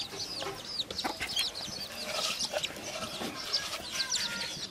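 Chickens clucking amid a busy chorus of short, high chirps that fall in pitch, coming several a second.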